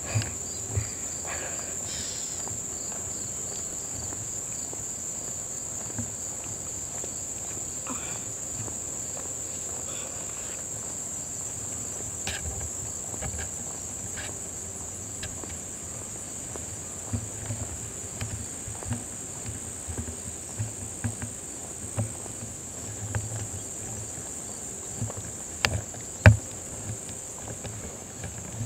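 A steady, high-pitched insect chorus, with scattered low thumps and a few sharp clicks in the second half.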